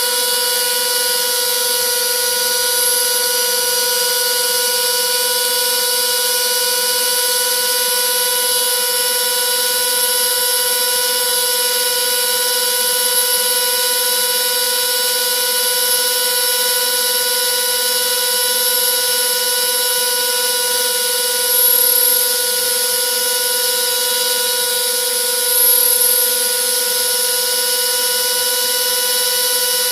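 Homemade CNC router's spindle motor running steadily with a whine, its bit carving wood. It swells twice briefly, about three-quarters of the way through.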